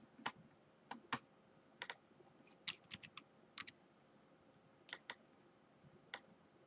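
Faint keystrokes on a computer keyboard: about a dozen short, irregular taps, with a quick run of them about three seconds in.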